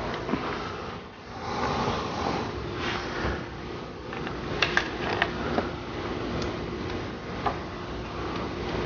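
Light clicks and taps of small egg-dyeing tools being handled on a countertop: a plastic egg press, a dropper and glass dishes, a cluster of them about halfway through. A steady faint hum lies underneath.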